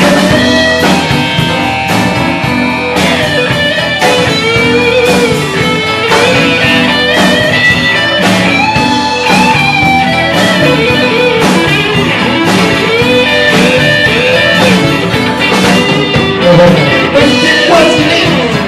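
Live band music: an electric guitar plays a lead line of bending notes over a drum kit.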